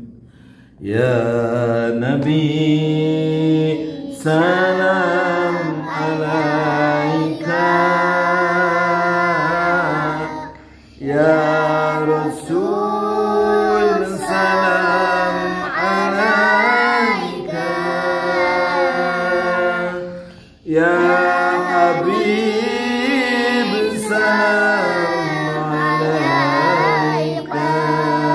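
A man and a group of children singing a Sundanese pupujian (devotional Islamic chant) together without instruments, in long sung phrases of about ten seconds each, with short breaks for breath between them.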